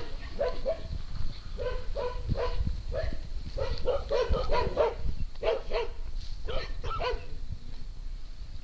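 A dog barking in a quick run of short barks, many in a row from about two to seven seconds in.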